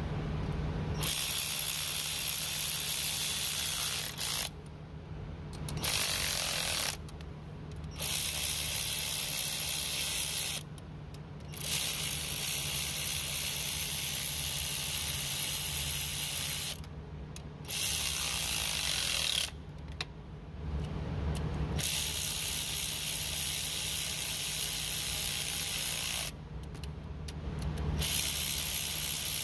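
Power ratchet running in repeated bursts of a few seconds with short pauses between, as bolts on a 6.7 Cummins cylinder head are run in or out during injector installation.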